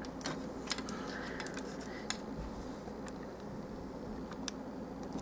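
A few faint, scattered clicks and taps of a plastic action figure being handled, over a steady low hum.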